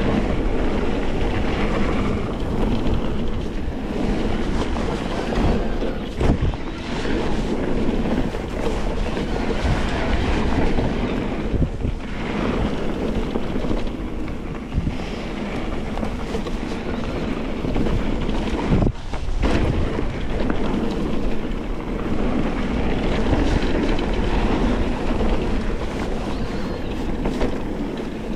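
Wind rushing over a GoPro's microphone during a ride, with a steady rumble and a few sharp knocks.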